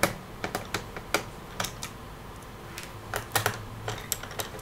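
About a dozen light, irregular clicks and taps of small screws and a screwdriver being handled against a laptop's plastic bottom case while the case screws are taken out.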